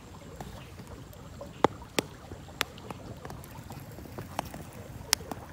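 Small stick campfire crackling, with a handful of sharp pops, as green corn cobs roast in it, over a low steady rumble.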